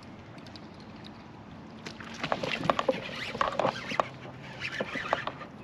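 Water splashing and clattering with irregular clicks and knocks, starting about two seconds in: a bass hooked on a frog lure thrashing at the surface as it is brought in.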